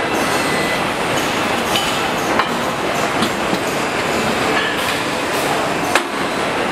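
Steady, loud machinery noise from a double-colour EVA foaming press as its mould plates open, with a few sharp metallic clicks and one clank about six seconds in.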